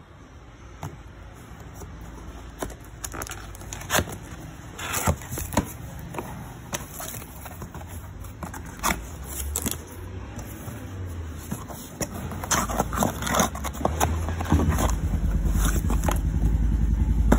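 Cardboard boxes being handled and opened by hand: scattered scrapes, taps and crinkles of cardboard, with a low rumble building up near the end.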